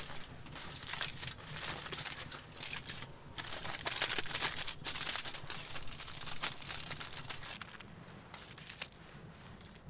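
Aluminium foil crinkling as it is unfolded by hand, in a run of quick crackles that are loudest in the middle and die down near the end.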